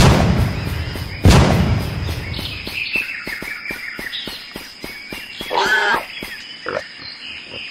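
Dubbed sound effects: two heavy booming thuds, one at the start and one about a second later, then a quieter bed of bird chirps with faint regular ticking. A short pitched call sounds about six seconds in.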